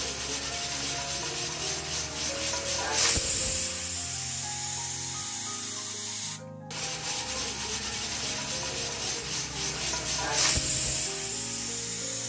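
Pressure cooker on the flame letting off steam, hissing steadily, with two louder steam whistles about a second long, one near the start and one near the end: the cooker has come up to pressure.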